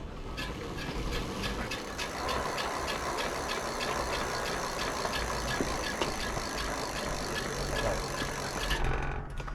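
E-bike rear wheel spun up to test it after the axle was tightened, running steadily with a low hum and a rapid, even ticking from the drivetrain; it stops shortly before the end.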